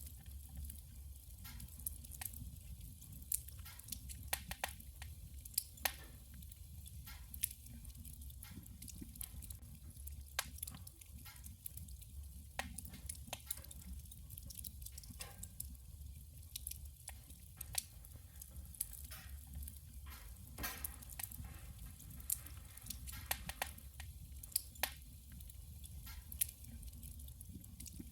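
Burning firewood in a wood stove crackling, with irregular sharp pops and snaps over a steady low rumble of the fire.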